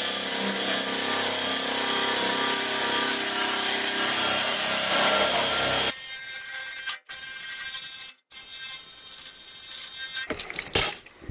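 Cordless drill spinning a wire wheel against a rusty steel frame rail, stripping rust: a steady motor whine with a harsh scratching hiss. About six seconds in it drops to a much quieter run with two brief gaps, and a few sharp clicks come near the end.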